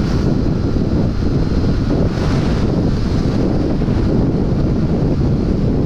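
Wind rushing over the microphone of a Yamaha FZ motorcycle ridden at highway speed: a loud, steady rumble.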